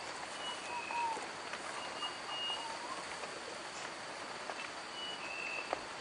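Forest ambience: a steady hiss, with a bird calling short high whistled notes, a few of them in pairs, and a couple of lower sliding whistles.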